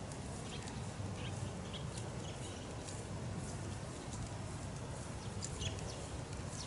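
Open-air ambience: a steady low rumble of wind on the microphone, with scattered short high chirps from birds.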